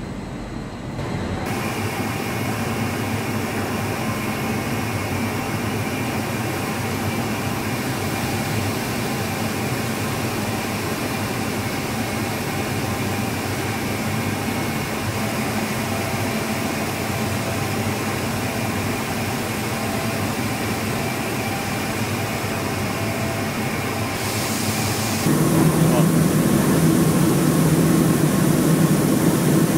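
Steady car-assembly-plant machinery noise, a hum with faint whining tones. It changes abruptly about a second in and again near the end, where a louder low drone takes over.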